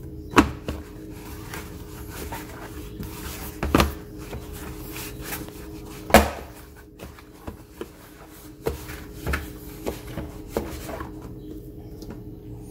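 A ball of sourdough dough being handled and shaped in a plastic bowl: irregular dull thumps and knocks as the dough is set down and pressed against the bowl. The loudest come about half a second in and about six seconds in, with a run of lighter knocks near the end.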